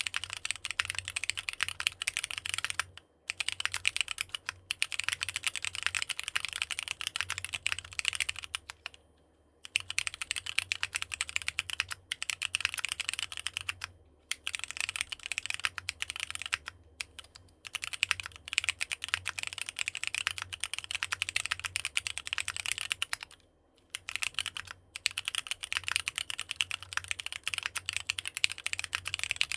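Fast typing on a NEO65 65% custom mechanical keyboard fitted with AKKO Sponge tactile switches: a dense, steady run of keystroke clacks, broken by a few short pauses.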